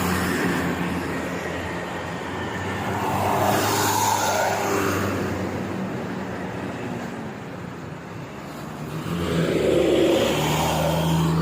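Motor vehicles running past on a road over a steady low engine hum. The noise swells as one passes about four seconds in, and again, louder, near the end.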